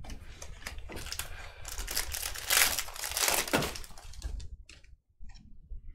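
Foil wrapper of a Panini Prizm football card pack crinkling as it is torn open. It is loudest about halfway through and dies away after about four and a half seconds.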